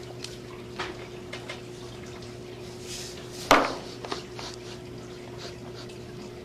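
A steady low electrical hum, with a few light clicks and one sharper knock about three and a half seconds in.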